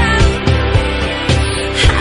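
Indonesian pop music playing: an instrumental stretch with a steady beat between sung lines.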